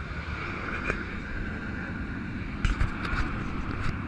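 Steady motor hum over a low wind-like rumble, with a quick cluster of sharp clicks or knocks about two and a half to four seconds in.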